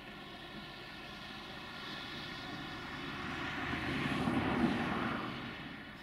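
Dump truck's diesel engine running steadily while its tipper body is raised to unload, with a broad rushing rumble that swells to a peak about four and a half seconds in and then fades, as the load slides out of the body.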